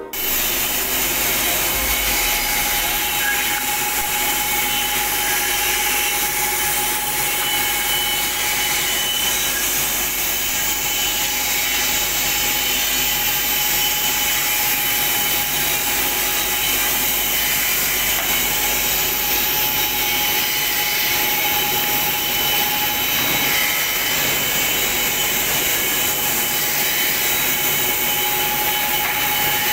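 Woodmaster WM-412 mini four-sided moulder (four-head planer) running, its cutterheads planing boards as they feed through: a loud, steady machine noise with a constant high whine, starting abruptly just after the opening.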